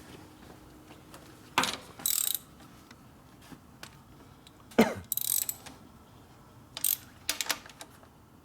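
Metal hand tools clicking and clattering in a handful of short, separate bursts, with quiet gaps between them.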